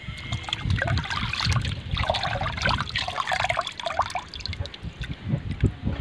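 Water splashing and trickling as hands scoop handfuls of small cleaned fish out of a metal bucket of rinse water and let them fall back. The splashes come irregularly, busiest in the middle, with low thumps of hands in the water.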